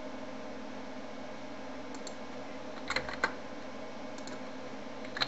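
Computer keyboard keys tapped while typing a number into a value field. A faint tap comes about two seconds in, then a quick run of three or four keystrokes, with more taps near the end, over a steady background hum.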